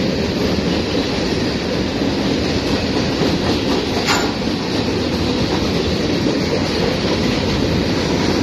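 Canadian Pacific freight train's boxcars and empty centerbeam flatcars rolling past at close range, a steady noise of wheels on rail, mostly low-pitched.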